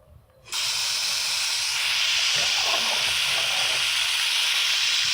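Water running hard from a tap into a container: a loud, steady hiss that starts abruptly about half a second in.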